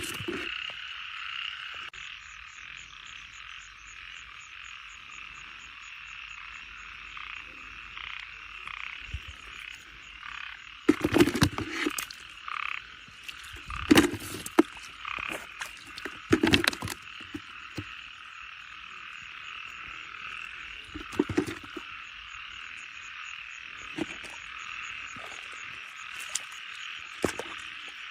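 A dense, steady chorus of frogs croaking, with a fast trill running above it. Several sharp thumps cut through, the loudest about eleven, fourteen, sixteen and twenty-one seconds in.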